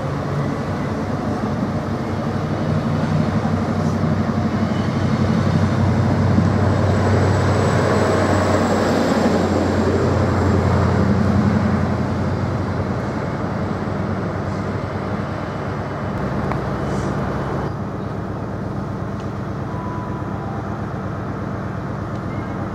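Diesel multiple unit moving through the station, its engines giving a steady low drone with track noise. The drone swells for the first few seconds, is loudest around the middle with a faint high whine, and eases off after about twelve seconds.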